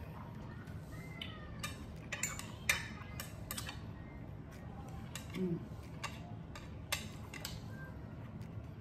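Mukbang eating sounds: close-up chewing and mouth clicks, with sharp clicks of chopsticks picking at food on a serving platter, scattered irregularly and bunched around the middle.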